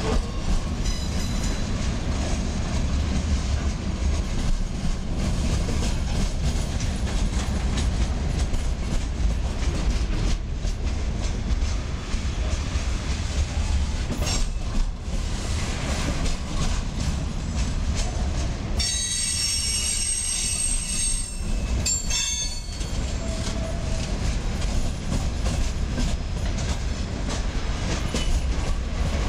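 Freight train cars rolling past: a steady low rumble and wheel clatter on the rails. About 19 seconds in there is a high, several-toned metallic squeal from the wheels, lasting two or three seconds, and a brief shorter squeal just after it.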